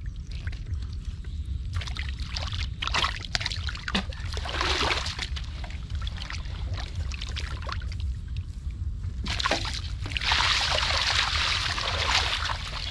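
Muddy water being stirred and splashed by hands in irregular sloshing bursts, the longest and loudest about ten seconds in, over a steady low rumble.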